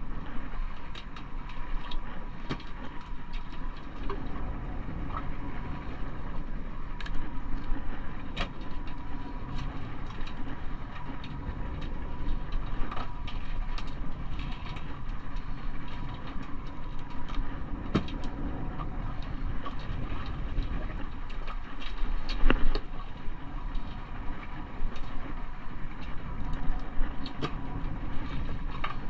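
Boat's motor running with a steady low rumble, with scattered clicks and knocks from fish and the hooked line being handled on the deck, the loudest knock about 22 seconds in. A faint steady high tone runs underneath.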